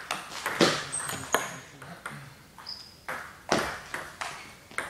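Table tennis balls clicking off bats and tables: sharp, irregular pings in quick clusters, with a quieter stretch around the middle. A few brief high squeaks sound between the clicks.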